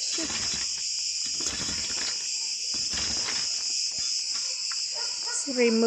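A steady, high-pitched chorus of insects chirring without a break, with faint irregular scrapes and a few knocks underneath.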